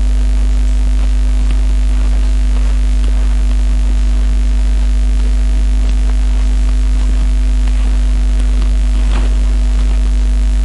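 Loud steady electrical mains hum with its overtones, laid over the whole recording, and a few faint clicks.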